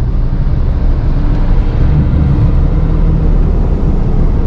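Steady low rumble of engine and tyre noise heard inside a Toyota Fortuner SUV's cabin while cruising on a wet road.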